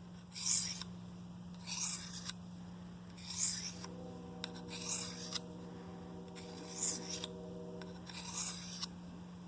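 Knife blade drawn edge-first across a fine diamond sharpening stone in six even strokes, one about every second and a half, each a short rising scrape.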